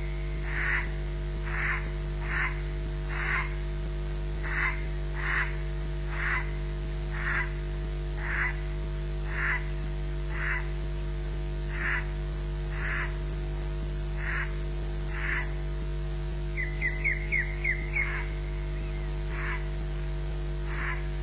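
Osprey giving short alarm chirps, about one a second, with a quick run of about six near the end: warning calls at corvids around the nest. A steady electrical mains hum runs underneath.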